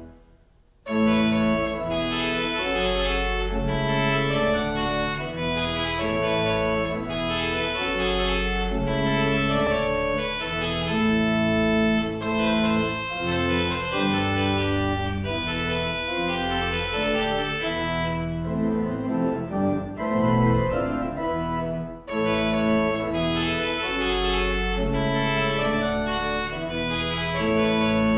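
Church organ playing a festive trumpet tune, sustained chords over deep bass notes. It falls silent briefly at the start and comes back in about a second in.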